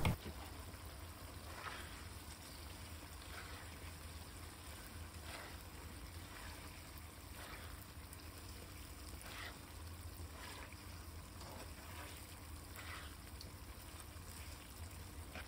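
Faint, wet stirring strokes of a spatula moving whole green chillies and garlic cloves through oily sauce in a nonstick wok, roughly one stroke a second, over a low steady hum.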